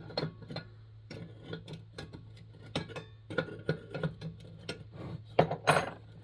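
Light metallic clicks and taps as the parts of a Coleman 220J lantern are handled and worked loose during teardown, with a louder clank near the end. A steady low hum runs underneath.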